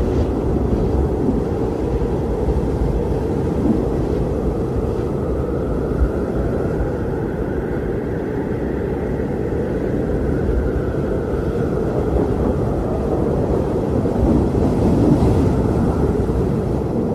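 Strong wind blowing as a steady, deep rush, swelling slightly near the end.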